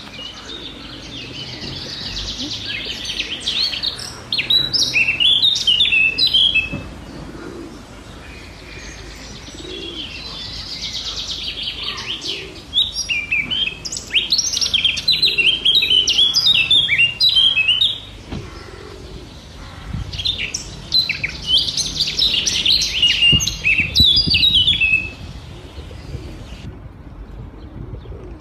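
Songbird singing: three long bouts of rapid, high twittering phrases, each several seconds long, with quieter pauses between.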